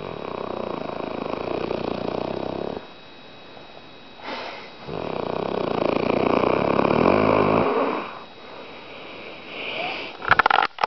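Snoring: two long snores of about three seconds each, with a short, fainter breath between them. Near the end there is a brief burst of sharp clicks.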